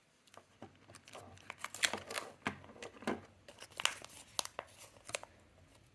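Packaging being opened by hand: irregular crinkling and tearing with scattered sharp clicks and taps.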